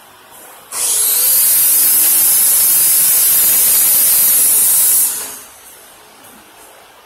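MIG welding arc burning steadily for a single run of about four and a half seconds: a loud, even hiss that starts abruptly about a second in and stops sharply.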